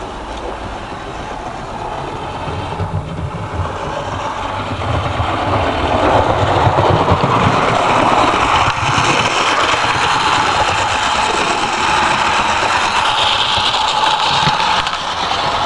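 Darstaed model of the locomotive Tornado running on a garden railway track, its wheels on the rails and its drive making a steady running noise. It grows louder over the first half and then holds steady, as if the locomotive is drawing closer.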